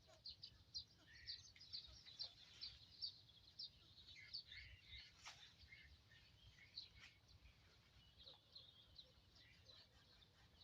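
Faint birds chirping, a quick run of short high calls over a faint steady outdoor rumble, with one sharp click about halfway through.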